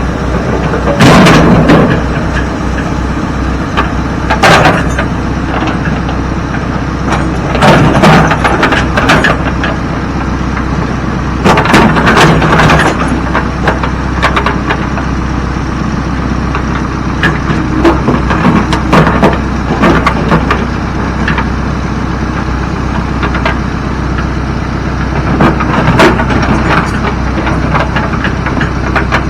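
Heavy machinery engine running steadily while a backhoe loads rock and dirt into a dump truck's bed. Loud crashes and rattles come every few seconds as each bucketload lands.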